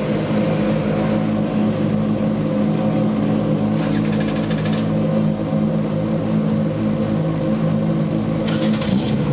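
Formula Renault 2.0 race car engines, Renault 2.0-litre four-cylinders, idling steadily after being started. Two brief high buzzing bursts cut in, about four seconds in and near the end.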